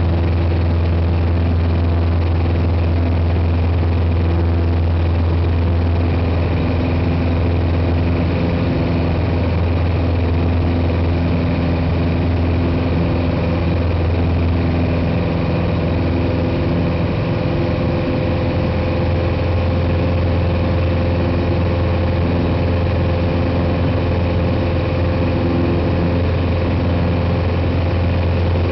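Piper PA-28 Cherokee's piston engine and propeller, heard from inside the cockpit, running at a steady, even drone with no change in pitch.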